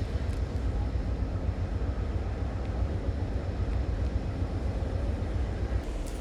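Moving passenger train: a steady low rumble of wheels and running gear on the rails.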